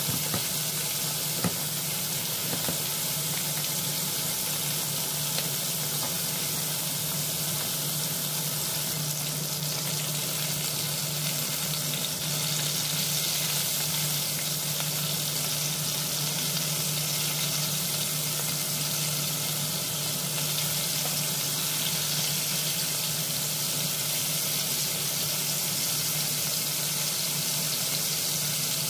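Chicken thighs frying in oil in a non-stick pan: a steady sizzling hiss over a steady low hum, with one sharp click about a second and a half in.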